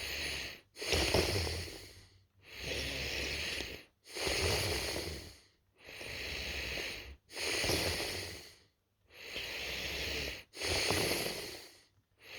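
A person snoring in sleep: slow, regular breaths with brief pauses between them, a louder snore with a low rumble coming about every three seconds and alternating with a softer breath, four times in all.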